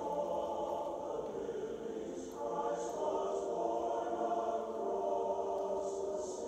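A choir singing slow, sustained chords, the held notes changing about two seconds in and again near five seconds.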